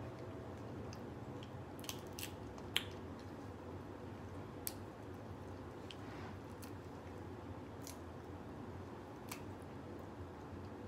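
Cooked crab leg shell being cracked and picked apart by hand: a scattered series of short sharp cracks and clicks, the loudest a little under three seconds in, over faint steady room noise.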